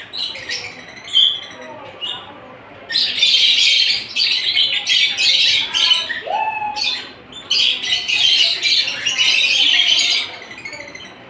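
Pet green parrot squawking harshly in two long loud bouts, with a few short chirps before them and a single rising call between them.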